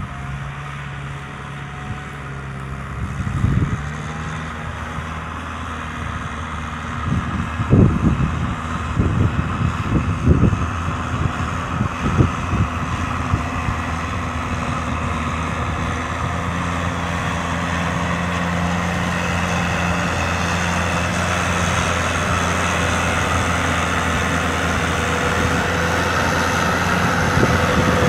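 Kubota M6040 SU tractor's diesel engine running steadily while ploughing a paddy, with several sharp knocks in the first half. The engine grows gradually louder through the second half.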